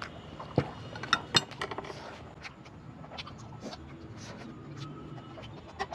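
Metal chopsticks clinking and tapping against a grill pan and plate: three sharp clinks in the first second and a half, then lighter, scattered taps.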